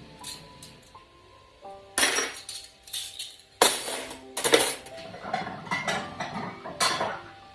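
Dishes and cutlery clinking and clattering as a dishwasher is unloaded, in a string of sharp clatters, the loudest about two, three and a half and four and a half seconds in. Soft background music plays underneath.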